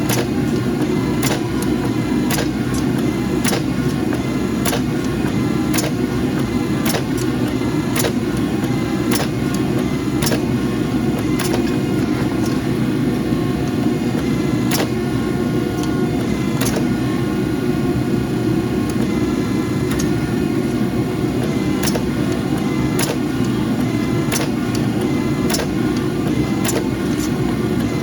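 Steady mechanical drone of forging equipment, a forge burner or the press's pump motor, with sharp irregular clicks and taps throughout.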